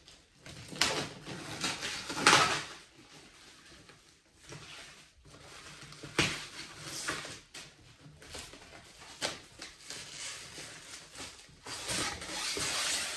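Clear plastic wrapping and packing tape being pulled and peeled off a cardboard box: irregular crinkling and rustling, loudest about two seconds in, with a sharp click about six seconds in and a denser stretch of rustling near the end.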